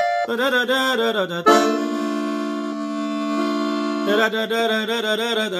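Hohner three-row diatonic button accordion in F playing a short phrase that settles into a held D minor chord for about two and a half seconds, then moves on into more notes near the end.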